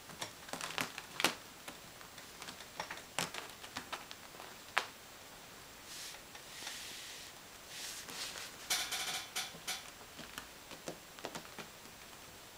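Kittens scuffling on a fabric office-chair seat: scattered light clicks and scratches of paws and claws on the upholstery, with rustling, and one short rasping stretch about nine seconds in.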